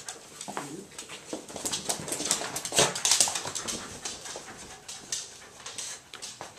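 A beagle playing and scrambling about with a plush toy monkey: a run of quick clicks, rattles and rustles, loudest about three seconds in.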